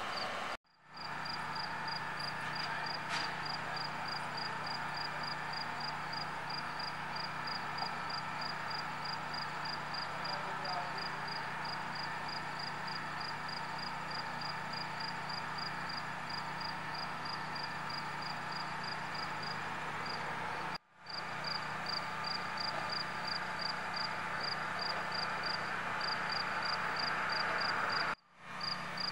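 Crickets chirping in a steady, even pulse of about two to three chirps a second, over a low steady hum of idling vehicle engines.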